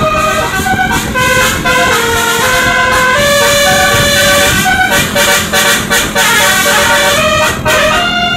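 Tour bus's Basuri telolet multi-tone air horn playing a melody, loud and continuous, its held notes stepping up and down in pitch, with a quick choppy run of short notes around the middle.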